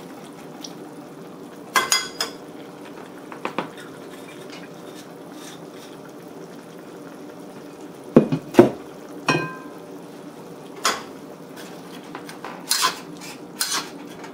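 Broth and sauces simmering in a wok with chicken and onion, a steady low hiss. Over it come scattered clinks and knocks of kitchen utensils and dishes: the loudest are two knocks about eight seconds in, followed by a ringing clink, and a cluster of clinks near the end.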